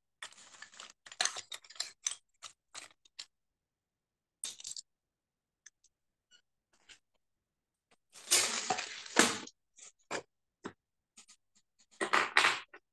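Handling noise of paper being shifted on a desk: short scrapes and rustles, with two louder bursts of rustling about eight seconds in and near the end.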